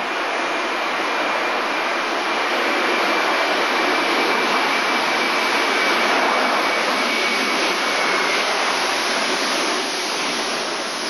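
Airbus A319-111's CFM56 jet engines on the landing roll-out, running loud with a steady rushing noise and a thin high whine that stops about eight seconds in, with tyres throwing spray on the wet runway.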